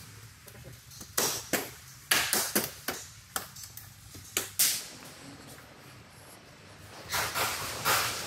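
The plastic mounting clips of a Toyota Land Cruiser Prado's front grille snapping into place as the grille is pressed onto the front end: a series of sharp clicks and knocks, about eight over three or four seconds. Softer scuffing noise near the end.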